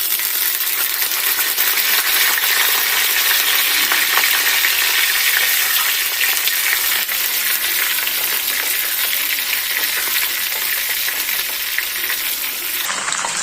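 Slit green chillies and curry leaves frying in hot oil in a pan: a loud, steady sizzling hiss.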